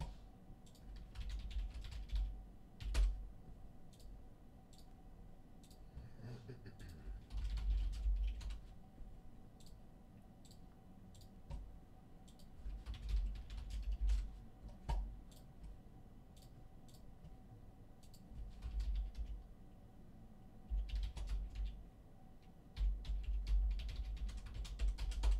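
Typing on a computer keyboard, with scattered sharp clicks and dull low thuds at intervals.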